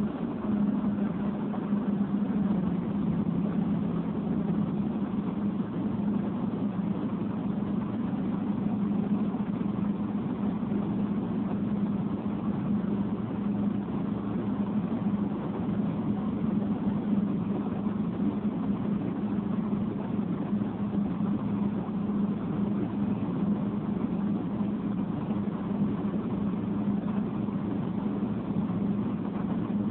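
A vehicle engine idling with a steady, unchanging hum, over the noise of passing road traffic.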